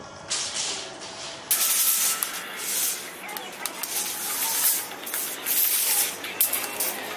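Rustling, rubbing noise in uneven surges, from clothing brushing against a clip-on microphone as the wearer moves.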